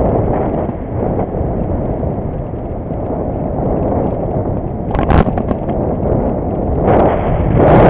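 Wind buffeting a microphone on a moving bicycle, a steady low rumble, with a short sharp knock about five seconds in and a louder swell near the end.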